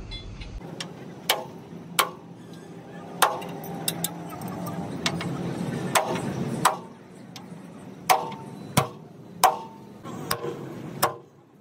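Hammer striking metal, about a dozen blows at an uneven pace, each with a short ring.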